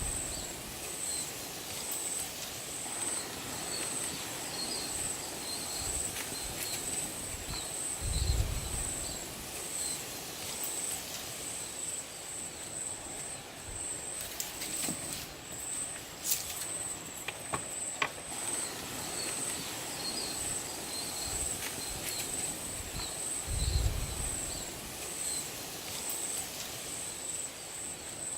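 Forest ambience with an insect chirring in a continuous high, rapidly pulsing trill, broken by a few dull low thumps and some scattered sharp clicks.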